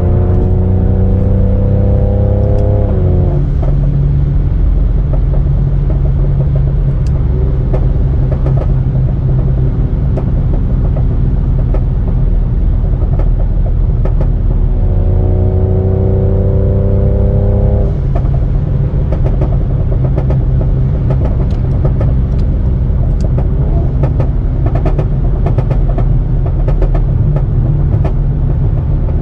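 Tuned Mercedes-AMG C43's twin-turbo V6 and exhaust under way. The engine note climbs and drops with an upshift about three seconds in, then holds steady. It pulls up again around fifteen seconds and drops at about eighteen seconds. From there the exhaust crackles and pops in a rapid stream of sharp cracks on the overrun.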